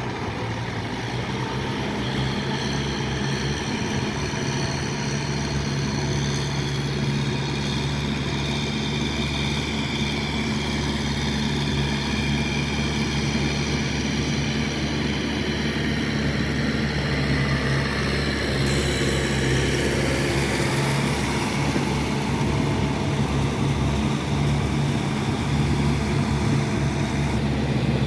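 Kubota tractor's diesel engine running steadily under load while working a wet rice paddy, growing slightly louder. A higher hiss joins for several seconds near the end.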